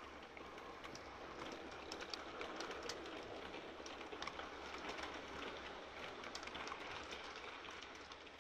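Model freight train, a Freightliner diesel locomotive hauling container wagons, running past on layout track. It makes a faint rumble of wheels on rail with many small irregular clicks, swelling slightly as it passes.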